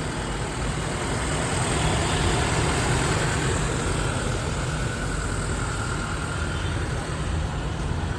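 Toyota Innova's diesel engine running steadily while its diesel particulate filter (DPF) is being regenerated.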